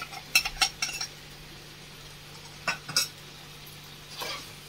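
Steel utensils clinking against a stainless steel bowl and a frying pan as a yogurt-and-spice mixture is scraped into a pan of gravy: a quick run of sharp clinks within the first second, two more about three seconds in, and a softer scrape near the end.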